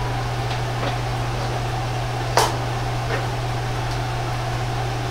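Steady low hum and hiss of a gas wok burner on a low flame and the kitchen's ventilation, with one sharp click a little before halfway.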